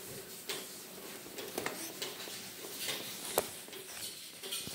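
A few scattered short clicks and taps over quiet room noise, the sharpest about three and a half seconds in.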